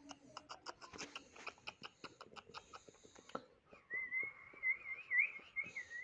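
A few seconds of rapid, sharp chirps, then from about four seconds in a wavering whistle that warbles up and down in pitch.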